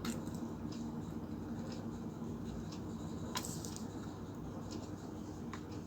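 A steady low hum of background noise, with three faint clicks from the mini speaker being handled: one at the start, one about halfway through and one near the end.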